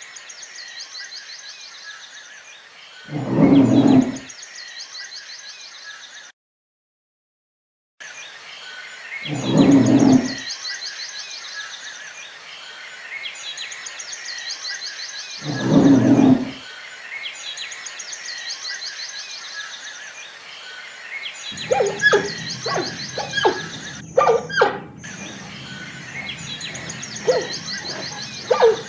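Three loud, deep calls from a large wild animal, each about a second long and spaced about six seconds apart, over a steady chorus of high insect or bird trills. After a brief break the recording changes, and a run of short, sharp animal calls over a low hum follows.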